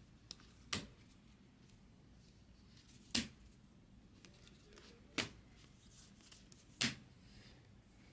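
A stack of 2020 Bowman baseball cards being flipped through by hand, card by card, with four sharp card snaps a second and a half to two and a half seconds apart.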